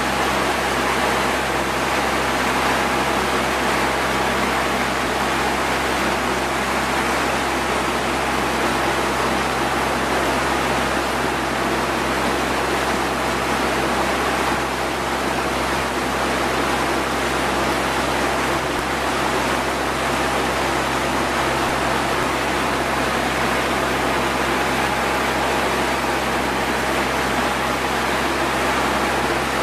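A boat under way: a steady low engine hum beneath an unbroken rush of water along the hull and air past the microphone.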